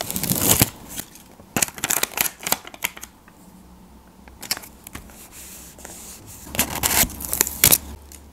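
Paper sticker being handled: rustling and crinkling as the backing is peeled off and the paper piece is pressed onto a sketchbook page, in several short bursts with sharp clicks.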